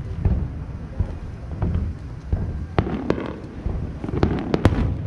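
Aerial fireworks going off: low booms, then a quick run of sharp cracks in the second half.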